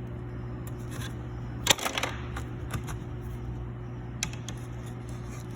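Sanding block clicking and tapping as it is set down and rocked against a flat surface, a few sharp clacks with the loudest cluster about two seconds in; the rocking is the sign that the block's face is not straight. A steady hum runs underneath.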